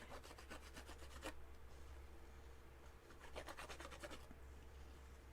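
Faint rubbing and scratching of cardstock being handled on a work table, in two short spells.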